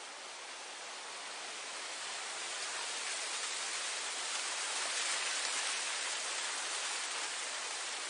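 Wind blowing through grass, a steady hiss that swells to a peak about halfway through and eases off again.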